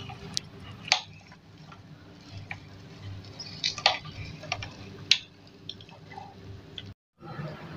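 Meat grinder pushing cooked beef and lentil mixture out through its plate: soft squishing of the mince, with a few sharp clicks over a faint steady hum.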